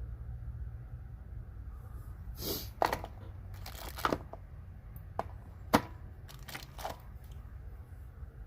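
Handling of a Helicoil thread repair kit's taps and parts: a series of sharp clicks and knocks, several of them in the middle of the stretch, over a steady low hum.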